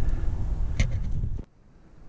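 Wind buffeting the microphone and the rattle of a mountain bike rolling over rough trail, with a single click about a second in. The noise cuts off suddenly about a second and a half in, leaving only a faint hiss.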